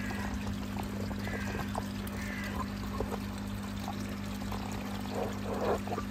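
Water from the koi pond filter pouring and splashing steadily back into the pond, over a steady low hum.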